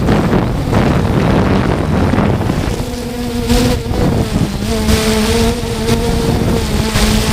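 3DR Solo quadcopter's motors and propellers buzzing, the pitch wavering as the throttle keeps changing against gusty wind. Heavy wind rumble covers the microphone, and the buzz stands out more clearly from about three seconds in.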